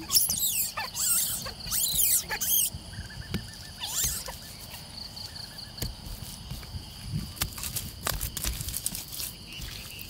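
Hands scraping, rubbing and patting wet mud over thin bamboo slats on a mud roof. Several loud rustling strokes come in the first few seconds, then scattered soft pats and taps. Insects chirp steadily throughout.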